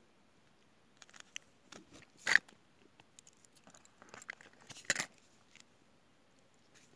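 Paper being handled and cut with a pocket knife: soft rustling and scraping, with two sharper clicks, about two seconds in and again near five seconds.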